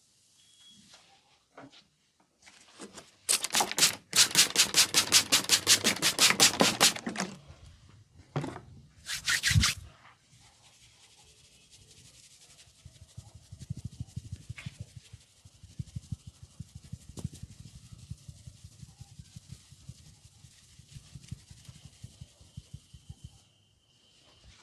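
Head massage by hand: about three seconds in comes a loud run of fast, even taps of the hands on the head, lasting about four seconds. After a short burst, the hands rub over the hair and scalp in a long soft rustle with faint taps.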